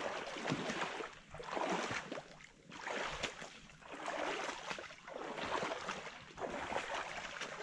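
Feet wading through shallow swamp water, sloshing and splashing with each stride in a slow, even rhythm of about one step every second or so.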